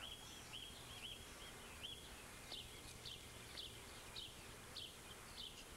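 Faint outdoor ambience with a small bird giving short high chirps, roughly two a second, the later ones sliding downward, over a low steady hum.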